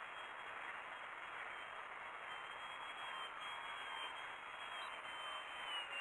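Electric motor and propeller of a small foam RC airplane flying at a distance: a faint, steady high whine that wavers slightly in pitch.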